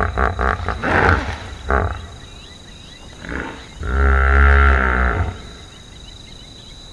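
Hippopotamus calling: a fast run of deep pulsed grunts over the first two seconds, then a short call and one long, loud, deep honk about four seconds in. Faint high chirping and a thin steady insect tone sound beneath it.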